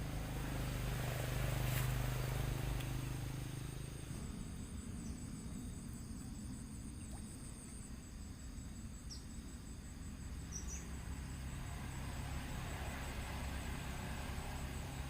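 Insects trilling steadily in a high-pitched, pulsing chorus over a low rumble. The rumble is loudest in the first few seconds.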